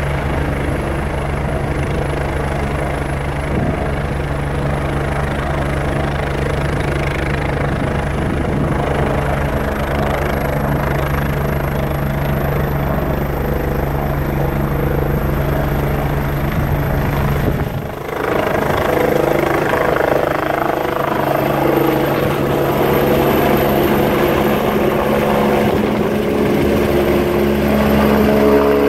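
AgustaWestland twin-turbine rescue helicopter powering up for takeoff: a steady low rotor-and-engine drone under a high turbine whine that slowly rises in pitch. About 18 seconds in the low drone briefly drops away, and the sound turns louder and rougher as the helicopter lifts off and climbs overhead.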